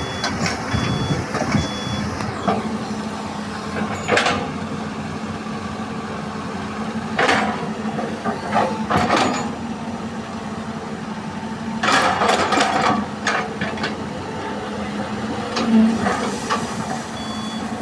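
Diesel engines of a Hitachi EX200 excavator and dump truck running steadily while soil is loaded, with scattered knocks and clatter. A truck's reversing beeper sounds at the start and again near the end.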